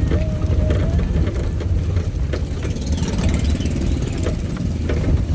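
A road vehicle in motion, a steady low rumble from its engine and tyres on the road, with scattered small knocks and rattles.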